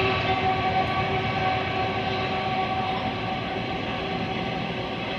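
Freight train of loaded ore wagons rolling past at a distance: a steady rumble with a thin held whine, slowly fading.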